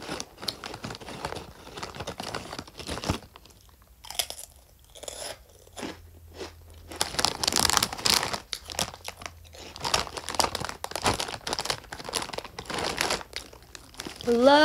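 Crunchy chips being bitten and chewed close to the microphone, in irregular crackly crunches that grow louder in the second half, with the plastic chip packet crinkling as it is handled.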